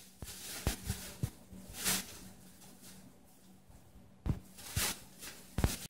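Plastic shopping bags rustling and crinkling in short irregular bursts as two ferrets wrestle in them, with a few sharp clicks.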